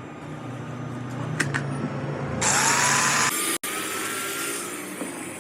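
Electric grinder grinding metal: a loud burst of grinding about two and a half seconds in that lasts about a second, then the motor's whine falling away.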